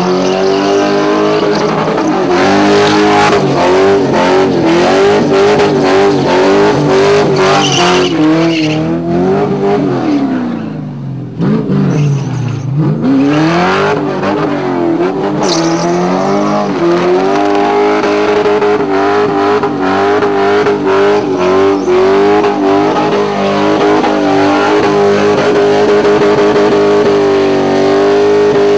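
VT SS Commodore's LS1 V8 held at high revs in a burnout, the spinning rear tyres screeching. About ten seconds in the revs fall away and climb back up, then hold steady again.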